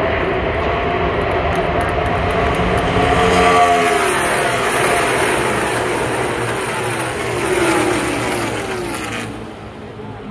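A field of NASCAR stock cars' V8 engines running loudly as the cars pass in a line. The pitch of each passing car falls as it goes by, about three seconds in and again near eight seconds, and the sound fades near the end.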